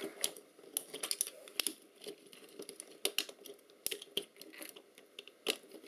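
Plastic parts of a Polaroid Vision camera clicking and tapping at irregular intervals as they are handled and pried apart during disassembly.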